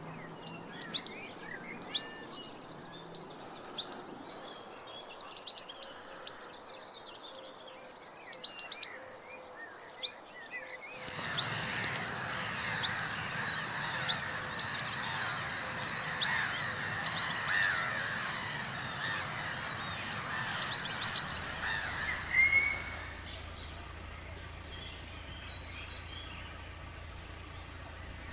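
Wild birds chirping and singing, at first as many short, separate chirps. About eleven seconds in the sound changes abruptly to a louder, denser chorus of birdsong, which falls away near the end to a quieter background with a low steady hum.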